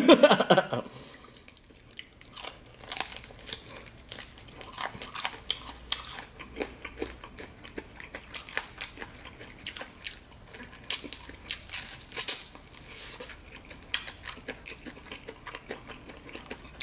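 Close-up eating sounds of a Shake & Bake oven-baked chicken drumstick: the crunchy breaded coating and meat being pulled from the bone by hand and chewed, a steady stream of small irregular crackles and mouth smacks.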